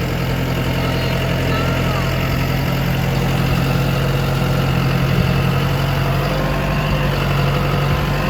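Farm tractor's engine running steadily while driving across a hay field, heard from aboard the tractor.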